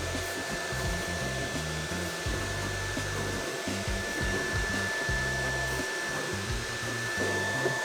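Dreame T20 cordless stick vacuum running steadily: an airy rush with a high, even motor whine, joined near the end by a second, lower tone.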